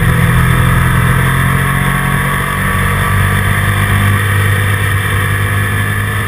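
Motorcycle engine running with a steady low drone under wind rush, heard from a camera mounted on the bike, growing gradually quieter toward the end.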